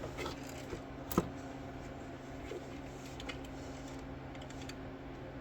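A few light clicks and taps, with one sharp click about a second in, over a steady low hum.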